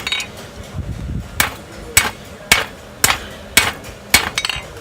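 Blacksmith's hand hammer striking hot steel on an anvil while forging a leaf, about two blows a second, with a pause of about a second near the start and a few lighter taps near the end.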